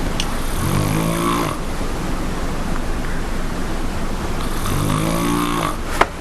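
A woman snoring, rowdy and quite loud: two long, rasping snores about four seconds apart, over a steady background hiss. A sharp click near the end.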